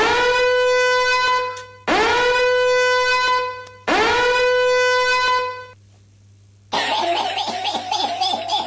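A buzzy, horn-like meme sound effect played three times in a row: each time the pitch swoops quickly up, then holds one steady note for nearly two seconds. A short gap follows, then a different, choppy, noisier sound effect runs for about two seconds near the end.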